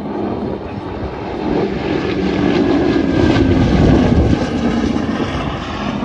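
Boeing B-17 Flying Fortress flying past with its four Wright R-1820 radial piston engines droning. The sound swells to its loudest about four seconds in, as the bomber comes closest, then begins to fade.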